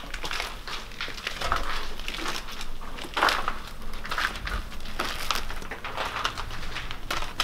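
Footsteps crunching on grit and debris while climbing concrete stairs, an irregular run of scuffing steps.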